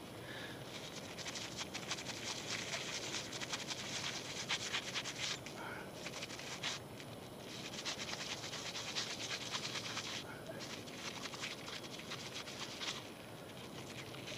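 Toothbrush bristles scrubbing a small dirt-crusted metal watch fob in quick scratchy strokes, in several bursts with short pauses between them.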